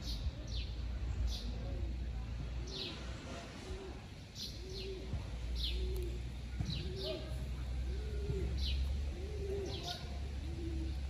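A dove cooing in a steady string of short, rounded notes, with a small bird's quick, high, falling chirps scattered over it, above a low rumble.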